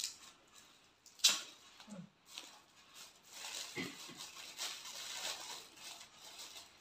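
Crinkly gift wrapping being rustled and peeled open by hand, in a dense run of small crackles from about halfway through. A single sharp tap a little over a second in is the loudest sound.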